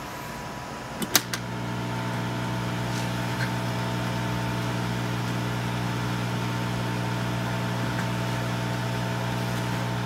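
Hot air rework station switched on with a click about a second in, its blower fan then starting and running steadily with a hum while the heater warms up.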